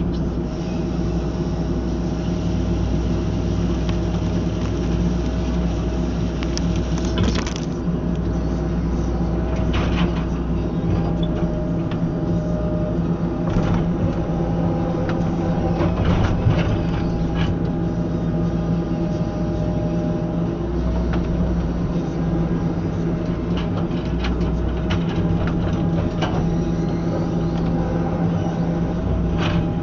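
Tracked excavator's engine running steadily while driving a CTR 42 IP hydraulic ground saw (bucksaw) attachment, with sharp cracks now and then.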